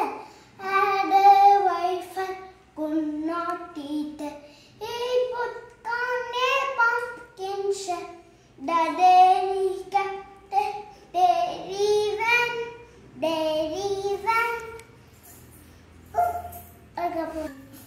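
A young boy singing a nursery rhyme with no instruments, in short phrases. He pauses for a second or two near the end.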